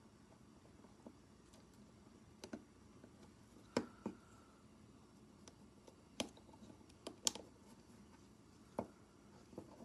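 Sparse, irregular clicks and light taps of small plastic parts and tools being handled while a car power-window switch is taken apart, the sharpest clicks about four and seven seconds in.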